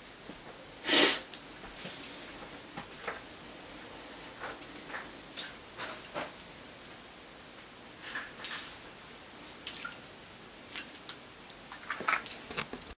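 Water splashing and dripping as a handmade balsa wood lure is pulled through a tub of water: one loud splash about a second in, then scattered small splashes and drips.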